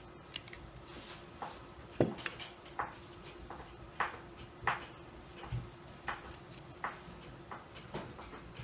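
Irregular light clicks and taps, one or two a second, with a sharper knock about two seconds in: scissors and hands working ribbon into bows. A faint steady hum runs underneath.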